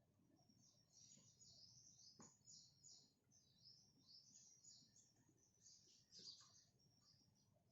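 Faint birds chirping: many quick, high chirps overlapping without a break, with one soft click a little after two seconds.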